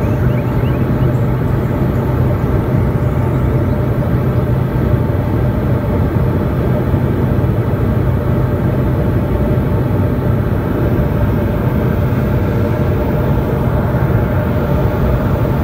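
Turboprop aircraft's engine and propeller running steadily, heard from inside the passenger cabin: a low hum with a constant higher tone above it.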